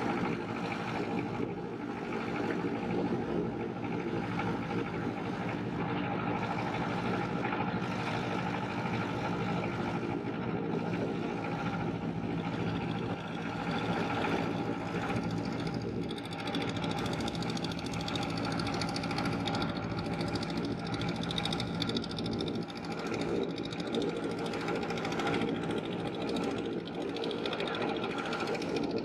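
Engine of a wooden river boat running steadily under way, with water rushing along the hull.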